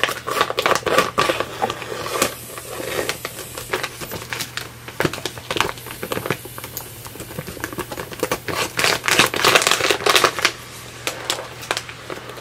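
Scissors snipping through a thin clear plastic vacuum-seal bag, the plastic crinkling and crackling as it is cut and pulled open by hand.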